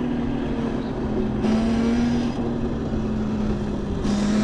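Electric vehicle motor running under way with a steady whine, over wind and road noise.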